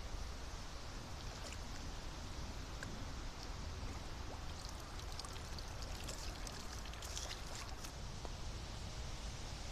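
Steady rushing of water, with a few faint light clicks around the middle.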